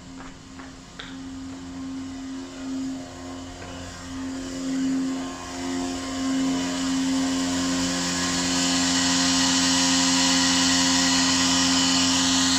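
Siemens fire alarm sounder droning on a steady low tone, with a harsh buzz that grows louder from about four seconds in; the uploader puts the fault down to low voltage. A few clicks in the first second.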